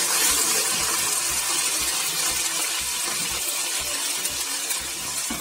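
Cut okra and drumstick pieces sizzling in hot coconut oil as they are stirred with a wooden spatula, with irregular low knocks under the steady hiss.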